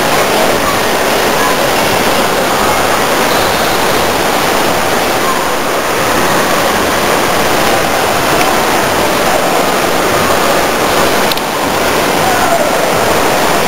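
Steady, loud rush of water spraying and pouring from a water park play structure into a shallow pool, with faint voices of people mixed in.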